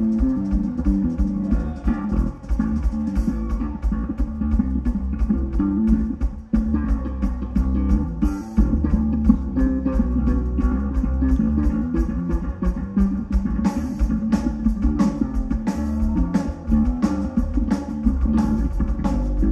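Electric bass guitar solo played live: a busy run of quickly changing low notes, with a drum kit keeping a steady beat and regular cymbal ticks behind it.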